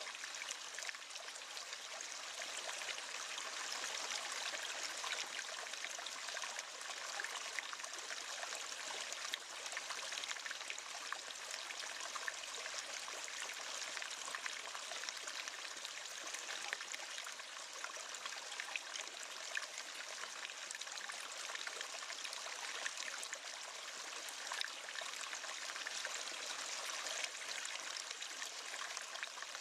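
A river or stream flowing steadily over rocks, a constant rushing with fine splashing and trickling.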